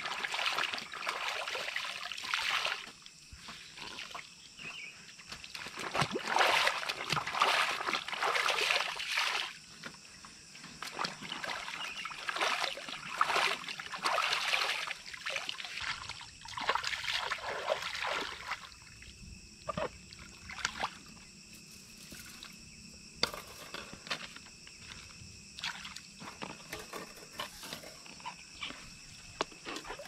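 Water sloshing and splashing in irregular bursts, busiest through the first half and thinning to scattered small splashes and clicks later on.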